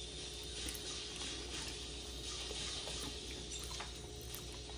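Faint sounds of people eating egg rolls: chewing and a few small clicks, over a steady low room hum.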